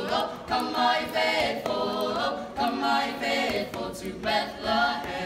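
A small group of students singing a Christmas carol a cappella, phrase after phrase with short breaks between them.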